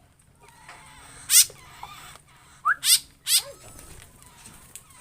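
Aviary birds giving harsh, high squeaky calls: one short call about a second in, then three in quick succession near the middle.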